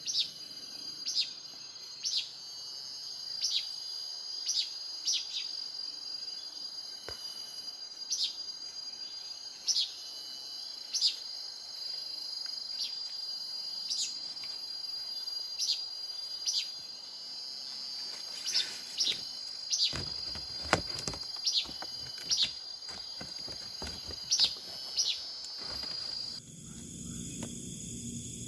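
Forest insects droning steadily at a high pitch, with short chirps repeating about once a second over them. A run of sharp clicks and knocks comes in about twenty seconds in, and the background changes abruptly a couple of seconds before the end.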